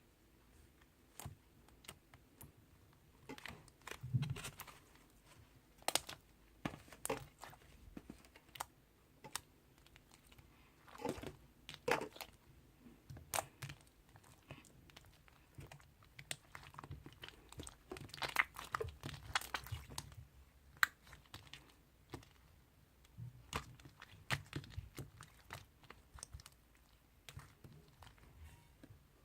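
Slime being handled and squished by hand, giving irregular small crackles, clicks and crinkly pops.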